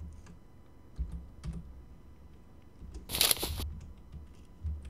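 Footstep sound effects playing back: two soft thuds about half a second apart around a second in, then a short, louder crunch about three seconds in.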